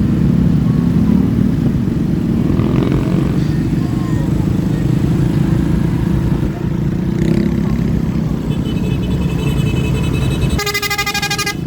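Steady low rumble of a motor vehicle on the move. Near the end, a loud multi-tone musical horn of the Basuri 'telolet' kind starts sounding, with fainter horn tones a couple of seconds before it.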